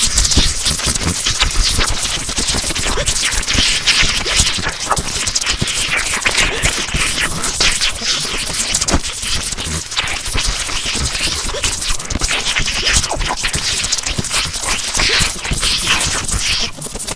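High-pitched electrical crackling sound effect: a dense, continuous crackle of sparks, like an electric arc, that cuts off suddenly near the end.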